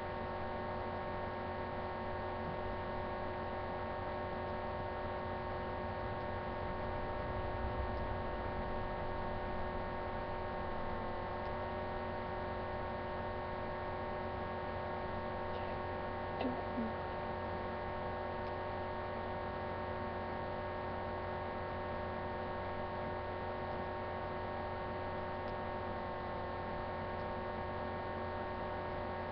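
Steady electrical hum made of several fixed tones over a low rumble, unchanging throughout. A brief faint knock comes about two-thirds of the way through.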